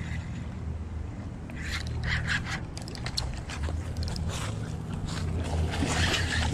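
A hooked goldline bullseye snakehead thrashing and splashing at the surface close to the bank. The splashing comes in bursts, about two seconds in and again near the end, over a steady low rumble.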